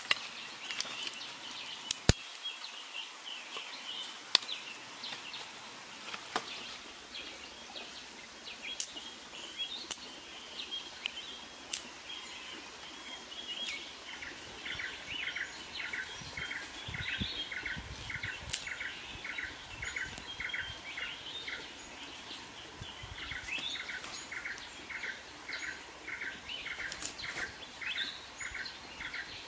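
Birds chirping in the forest, with a repeated chirp at about two a second from about halfway on. Over it come occasional sharp clicks and knocks as sticks and stones are handled, the loudest two near the start.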